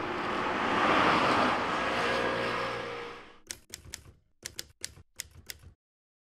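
A rushing noise that fades out over the first three seconds, then a quick run of about ten sharp clicks from a camera shutter firing over about two seconds.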